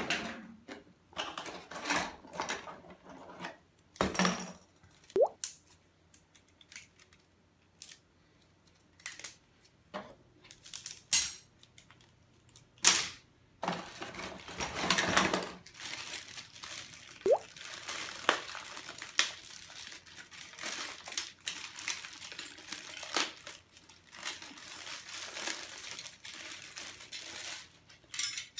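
Antenna parts being unpacked from a cardboard box: scattered clicks and knocks of plastic and metal pieces handled and set down on a table, with cardboard and plastic packaging rustling more continuously from about halfway through.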